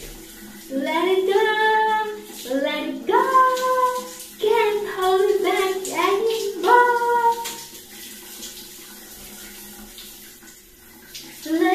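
Shower spray running, with a singing voice in long held and sliding notes over it. The singing stops about two-thirds of the way through, leaving only the spray, and starts again at the very end.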